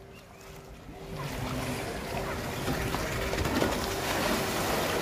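Water rushing and splashing in a water slide's splash pool as a rider on a mat slides down into it. The noise builds over the first couple of seconds, then holds steady.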